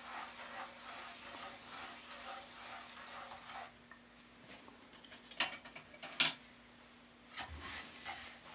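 A turning potter's wheel with a steady hum, under a scratchy rattling for the first few seconds. Two sharp clicks come a little after the middle, and a short rustle near the end.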